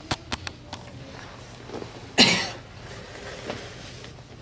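A few short clicks near the start, then one sharp cough from a person about two seconds in, the loudest sound.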